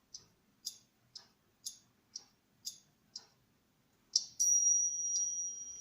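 Light, sharp clicks about two a second, then a steady, high-pitched electronic beep starting about four seconds in and lasting about a second and a half.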